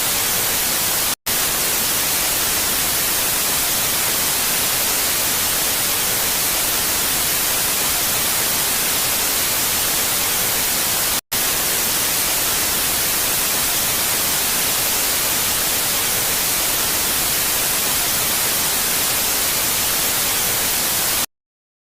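Loud steady static hiss with two brief dropouts, about a second in and about eleven seconds in, cutting off abruptly to silence near the end.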